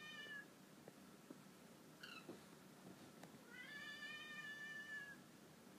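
A dog whining faintly: a high whine trailing off just after the start, a short one about two seconds in, and a longer one lasting about a second and a half near the end.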